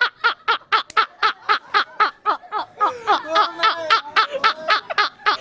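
Two men laughing hard, an even run of 'ha-ha-ha' pulses about four or five a second, with a second laughing voice overlapping from about three seconds in.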